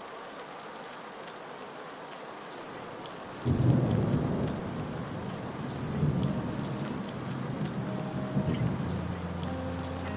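Steady rain hiss; about three and a half seconds in, a loud rolling clap of thunder breaks in and rumbles on under the rain. Near the end, low held notes of music start to come in.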